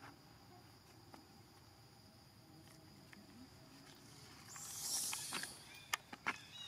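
Insects calling steadily at a high pitch, faint. About five seconds in there is a brief rustle, followed by a few sharp clicks.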